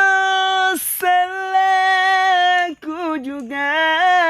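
A single high singing voice, unaccompanied, holding two long steady notes with a quick breath between them, then wavering through ornamented, melismatic notes in the second half.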